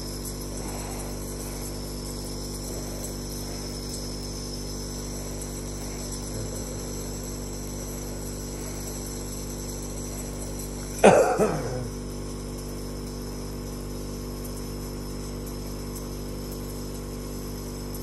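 A nebulizer's air compressor running with a steady hum while the albuterol mist is inhaled through the mouthpiece, broken partway through by a single loud cough.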